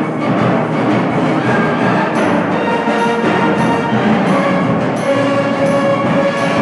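Concert band playing: sustained wind chords with percussion strokes coming in regularly, about twice a second, from about two seconds in.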